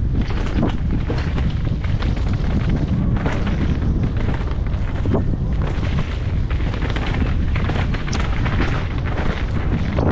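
Wind and rumble on a rider-mounted GoPro's microphone as a mountain bike descends a dirt and leaf-litter singletrack, with the tyres rolling over the trail and frequent clattering knocks from the bike over roots and rocks.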